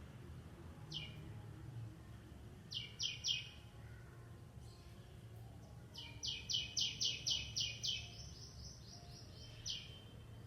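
A bird chirping in short, sharp notes that fall in pitch: a single note, then a quick triplet, then a fast run of about eight chirps, then one more near the end. A low, steady background rumble runs underneath.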